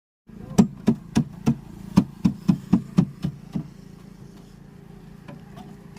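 A hammer striking about eleven times at roughly three blows a second, stopping about three and a half seconds in, over a steady low hum.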